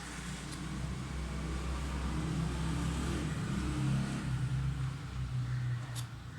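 Small electric motor running with a low hum, its speed wavering and its pitch dropping about four seconds in.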